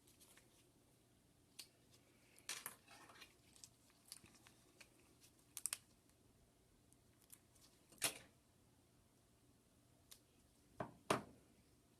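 Faint, scattered clicks and short crinkles of Kapton tape being handled and laid over small board connectors, with sharper clicks about eight seconds in and a quick double click near the end.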